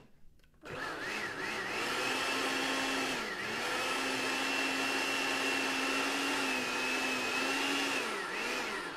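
Hamilton Beach countertop blender blending spinach, mango and almond milk into a smoothie. After a click, the motor spins up with a rising whine, runs steadily with a brief dip in pitch about three seconds in, and winds down near the end.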